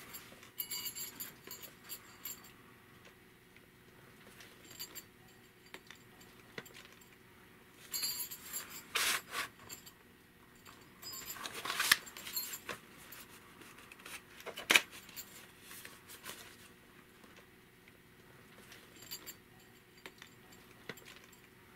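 Handling noise of a VHS cassette and its case: scattered plastic clicks, rubbing and light rattling as they are turned over, with a few louder clacks in the middle.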